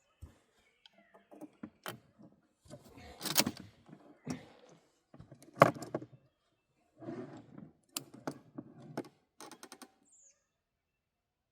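Mossberg 500 12-gauge pump shotgun being handled and readied to fire: scattered clicks, knocks and clacks, the loudest about three and a half and five and a half seconds in, with a quick run of small clicks near the end.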